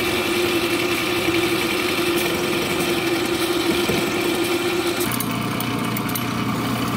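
Milling machine running as an end mill cuts across a welded aluminium cylinder head under coolant, machining it flat, with a steady tone. About five seconds in it gives way to the different steady sound of a drill press running as it drills into the head.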